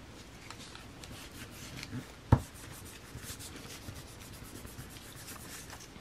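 Hands rubbing and smoothing thin tissue paper pressed onto a painted gelli printing plate, a soft run of brushing, scraping strokes as the paper picks up the paint. One sharp knock about two seconds in.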